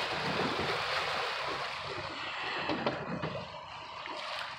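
Steady rush of river water against the hull of a small fishing boat, with a few light knocks.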